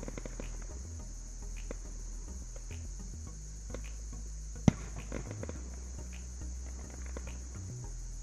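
Fireworks going off at a distance: scattered bangs and crackles, one sharp, loud report a little past halfway, over steady chirping of crickets.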